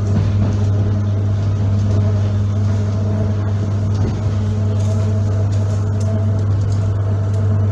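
Inside an ER9P electric multiple unit under way: the steady running noise of the train, a constant low hum over an even rumble.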